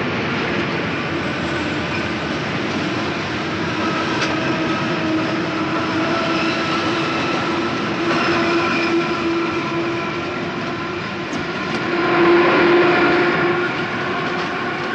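Paris Métro Sprague-Thomson train running along the track: a steady rumble with a held whine. It grows louder for a couple of seconds about twelve seconds in.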